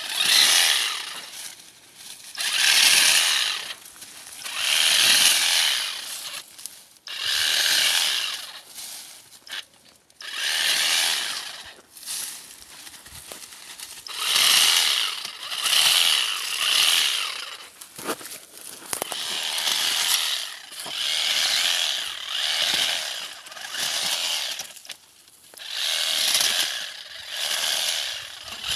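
Battery-powered shoot and sucker removal machine running, its electric motor and 33 cm blade speeding up and dropping back in repeated bursts a second or two long, with short dips between them.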